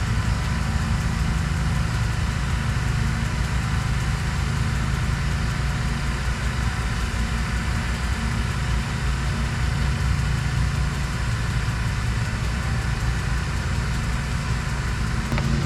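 Steady low rumble of a vehicle engine running, even and unbroken.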